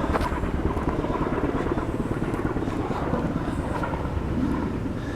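Kaman K-MAX helicopter flying nearby, the steady chop of its twin intermeshing rotor blades.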